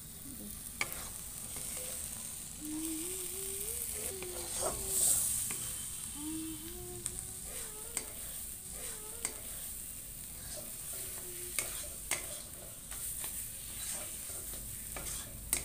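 Halwa sizzling in a steel kadhai as it is stirred with a metal spatula: a steady frying hiss, with the sharp click of the spatula against the pan every couple of seconds.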